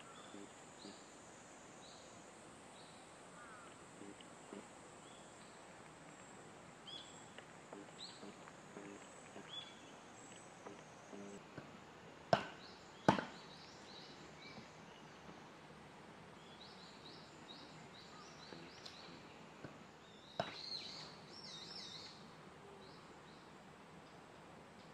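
Small birds chirping in woodland, with a faint steady high trill through the first half. About halfway through come two sharp knocks less than a second apart, the loudest sounds.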